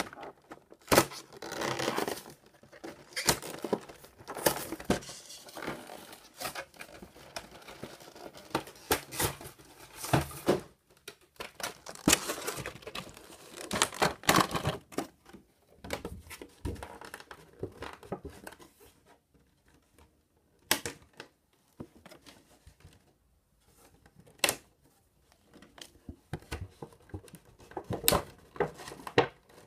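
Cardboard box and clear plastic blister tray of a trading-card collection being opened and handled: irregular tearing, crinkling and rustling of packaging with sharp plastic clicks, quieter for a stretch in the second half.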